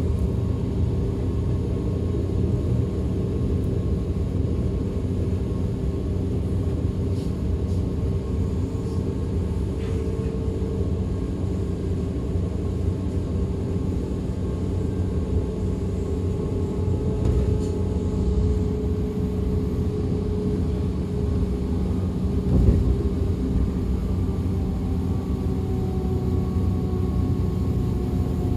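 DB class 425 electric multiple unit running, heard on board: a steady rumble of wheels on rail with electric traction-motor whine whose pitch slowly falls in the second half. One sharper knock about three-quarters of the way through.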